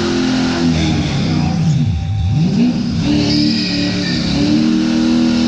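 V8 engine, which looks like an LS3, held at high revs during a burnout with the rear tyres spinning; about two seconds in the revs drop and climb back up, then hold steady again.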